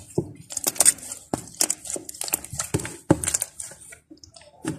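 Slime with clay mixed into it, kneaded and pressed by hand: a run of irregular sharp clicks and crackling squishes. The slime is still stiff from the added clay.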